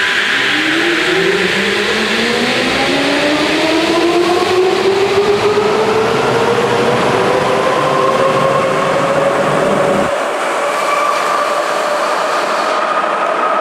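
Sapporo Municipal Subway 7000 series rubber-tyred train departing from an underground platform: the traction motors' whine rises steadily in pitch as it accelerates, over the rumble of the passing cars. The low rumble drops away about ten seconds in as the last car clears the platform, leaving the fading whine.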